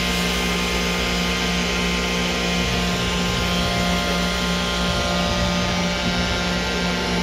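OKK VP400 5-axis CNC machining center running, a steady hum with several constant whining tones, as its trunnion table tilts the rotary platter up toward vertical.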